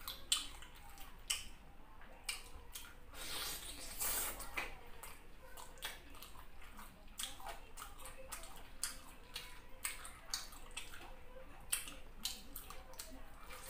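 Close-up eating sounds: irregular wet, sticky clicks and squishes as fingers pick apart chicken in yellow soup and fufu, mixed with chewing.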